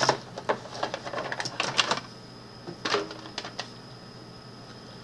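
Irregular light clicks and clatter of small hard plastic toy figures being handled. The clicks come thick for about the first two seconds, then only now and then.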